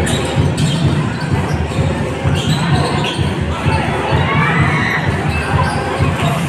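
Basketball game sounds in an echoing gym: a ball bouncing on the court amid steady crowd noise and scattered shouts.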